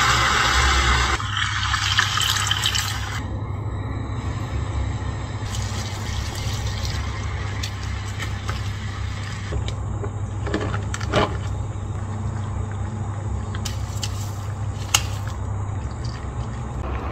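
Tteokbokki in thick sauce bubbling in a frying pan, a wooden spoon scraping and knocking against the pan now and then, over a steady low hum.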